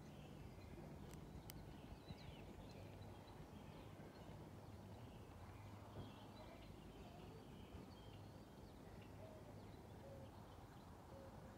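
Near silence: the faint, steady low rumble of a jet airliner passing over at cruising altitude, with scattered faint bird chirps.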